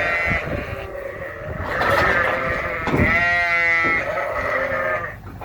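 Sheep bleating, several overlapping calls with one long, wavering bleat about three seconds in: ewes and lambs calling to each other while they are separated during loading.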